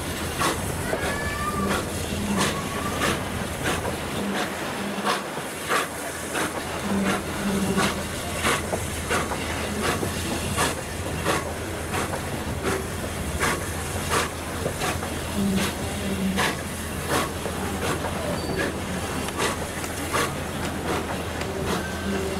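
Train wheels clicking over rail joints in a steady, even rhythm, about one to two clicks a second, over a continuous low running rumble.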